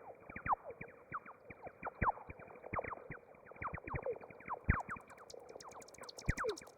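Electronic music: a dense, irregular scatter of short falling bleeps and sharp clicks, with a brighter high crackle of rapid clicks joining about five seconds in.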